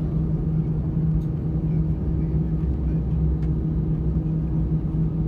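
Airbus A320's CFM56 turbofan engines running, heard inside the cabin at a window seat: a steady hum with a constant low tone, over a deep rumble that grows about two seconds in.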